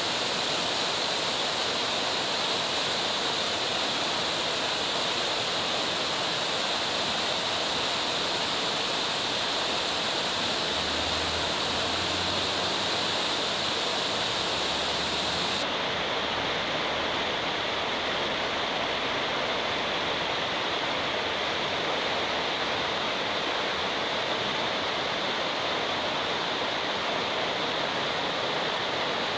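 The Hinterrhein river rushes over boulders as steady whitewater. About halfway through, its highest hiss drops away.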